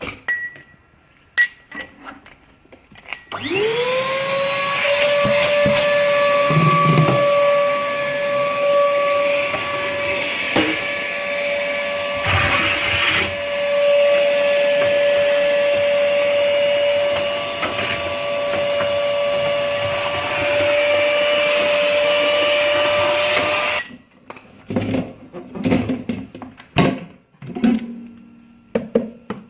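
Lavor Ashley 310 ash vacuum's 800 W suction motor switching on a few seconds in, its whine rising quickly and settling to a steady pitch. It runs for about twenty seconds, with a brief louder rush of air near the middle, then cuts off suddenly. There are handling clicks and knocks before it starts and after it stops.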